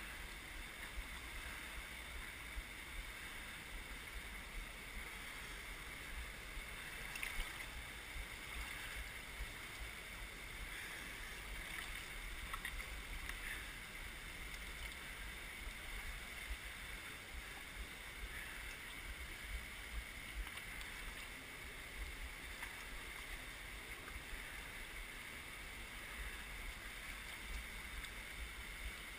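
River water rushing over rocks in rapids: a steady, even noise with a low rumble beneath and a few faint taps.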